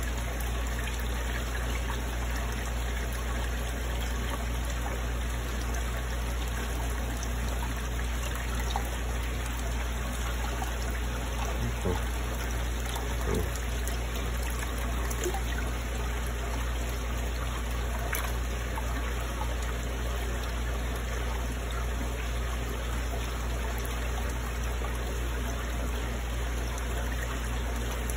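Water trickling and running steadily in a koi fry tank, over a low steady hum, with a couple of faint taps near the middle.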